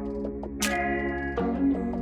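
Background music: held chords with a sharp percussive hit about two-thirds of a second in.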